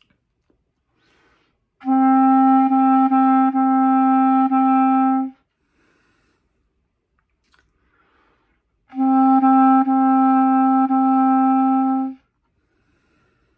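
Clarinet playing the beginner note D, the written D just below the staff, as a steady held tone twice, each about three and a half seconds long, with a few brief tongued breaks inside each note.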